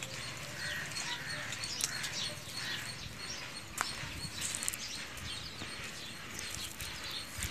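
Small birds chirping with many short calls, over a few faint clicks and crackles of a dried cow-dung crust being picked off a roasted egg by hand.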